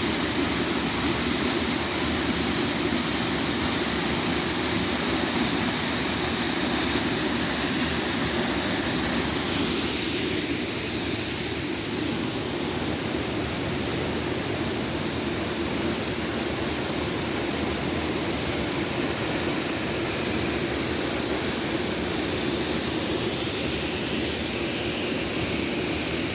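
Steady rush of water pouring down a waterfall, a little quieter from about ten seconds in.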